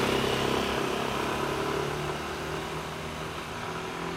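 Single-cylinder four-stroke scooter engines pulling away, a steady drone that fades as the scooters ride off.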